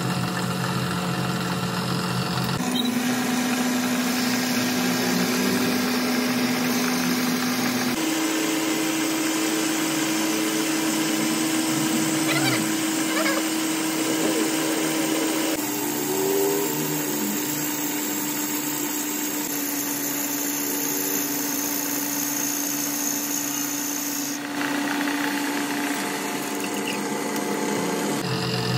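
Metal lathe running, turning a piston blank, with a steady motor hum over machining noise. The hum jumps to a new pitch abruptly several times.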